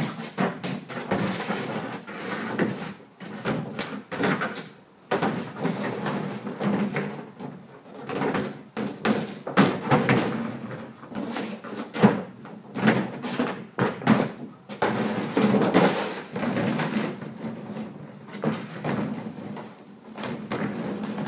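A dog dragging and shoving a hard plastic kiddie pool around on wet concrete: irregular scrapes, creaks and knocks of the plastic rim on the ground.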